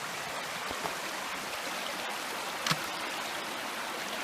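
Creek water running over rocks as a steady rush, with one sharp knock or splash about two and a half seconds in.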